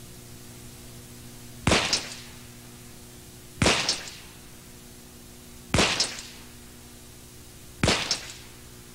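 Four shots from a Smith & Wesson Model 10 .38 Special revolver fired at a slow, even pace, about two seconds apart, each followed by a brief echo.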